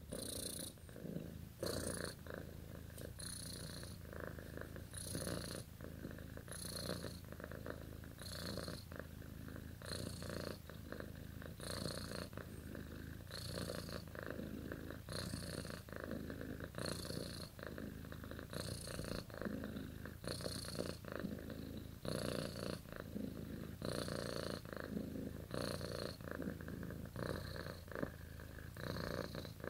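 Domestic cat purring in its sleep, with the purr swelling on each breath in a slow, even rhythm of about one breath every one and a half to two seconds.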